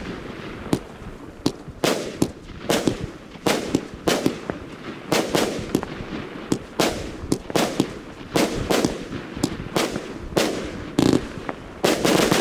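A firework cake with 25 mm tubes (Funke Kamuro Weissblinker) firing shot after shot, about two sharp bangs a second, each with a short echoing tail.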